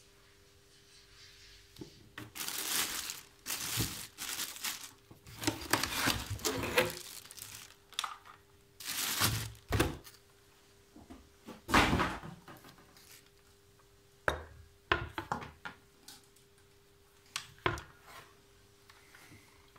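Clear plastic wrapping rustling and crinkling as a circular saw is pulled out of its cardboard box, with two heavy thunks about halfway through. Near the end, a few short sharp knocks and clicks as the saw is handled on a wooden workbench.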